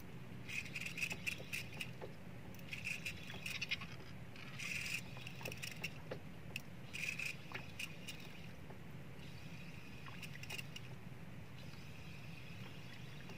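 Fishing reel working in short bursts every couple of seconds, clicking and whirring as line is taken back against a hooked fish, over a steady low hum.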